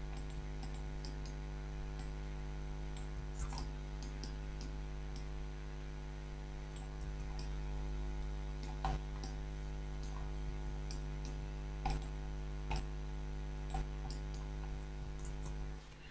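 Computer mouse clicking now and then, single sharp clicks a second or two apart, over a steady electrical hum.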